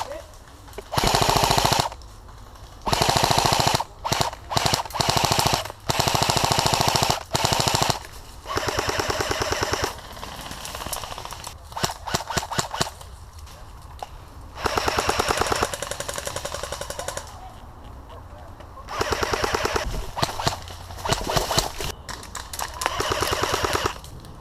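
Airsoft rifles firing repeated full-auto bursts, each a rapid run of clicks lasting a second or two. Some bursts are loud and close, others fainter.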